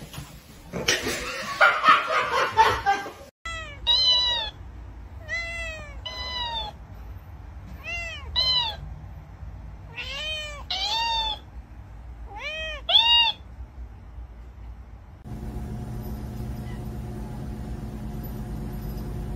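A cat meowing again and again: about a dozen short meows that rise and fall, many coming in quick pairs. A stretch of loud rustling noise comes before them, and a steady low hum follows.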